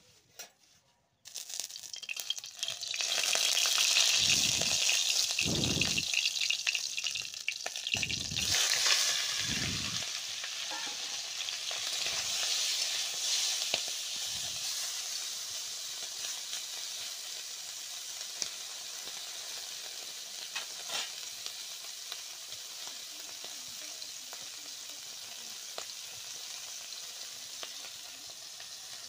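Tengra fish frying in hot oil in a kadai while being stirred with a spatula. The sizzle starts suddenly and loud about a second in, then settles to a steadier, quieter hiss.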